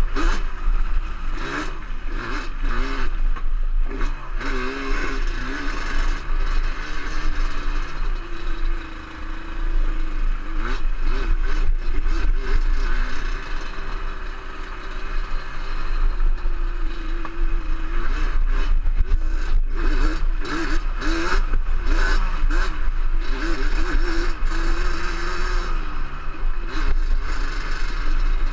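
Off-road vehicle engine running hard along a rough trail, its pitch rising and falling constantly with the throttle and easing off briefly about nine seconds in, with rattling and clattering over the bumps and a low wind rumble on the microphone.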